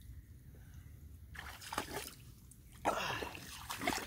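Shallow water splashing as a person wades through a tidal creek: a brief splash about a second in, then heavier, louder splashing near the end.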